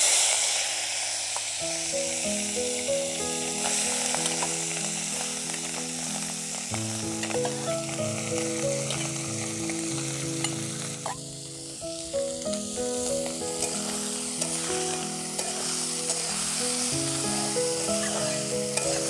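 Small chanda fish (glassy perchlets) frying in hot mustard oil in a kadai: a steady, loud sizzle that starts abruptly as the fish go into the oil. Background music plays under it.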